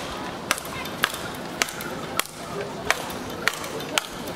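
Speedball rally: the ball on its cord, tethered to the central pole, is hit back and forth by solid round rackets, about seven sharp cracks a little over half a second apart.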